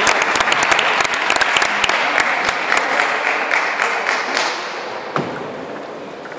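Spectators applauding, the clapping dying away over about four seconds. About five seconds in, a table tennis ball is struck once as a rally begins.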